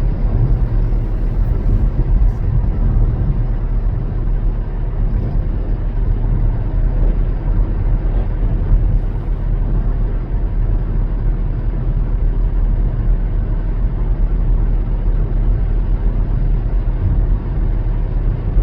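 Steady low rumble of road noise inside a car's cabin, cruising at highway speed.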